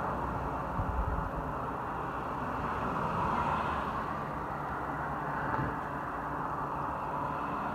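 Steady outdoor background noise: a low rumble and hiss with no distinct events.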